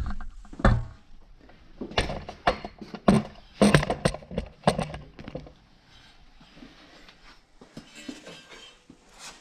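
Metal clanks and knocks as a steel front steering knuckle and press plates are handled and set up on a hydraulic shop press, ready to push out the wheel bearing. There is a sharp knock at the very start, a run of clanks through the first five seconds, then quieter shuffling of metal parts.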